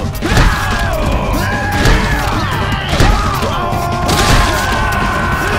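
A log battering ram striking a heavy wooden gate, a series of dull booming thuds about one to one and a half seconds apart, over dramatic orchestral action music.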